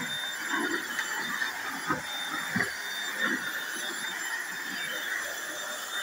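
Corded stick vacuum cleaner running steadily, a motor whine with thin high tones, as its floor head is pushed over a hardwood floor. A few soft bumps come from the head knocking along the floor.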